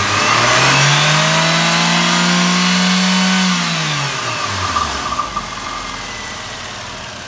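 Nissan QR20DE 2.0-litre inline-four engine revved to about 5000 rpm with no load. The revs climb over the first second, hold high for about two and a half seconds, then fall back to a steady idle.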